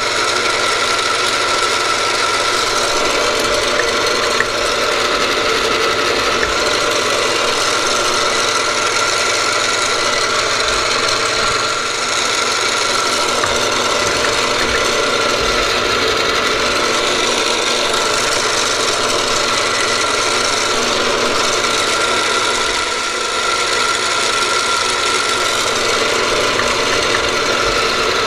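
Vertical milling machine running steadily, its spindle turning a spotting drill while holes of a bolt circle are spotted into 4140 steel.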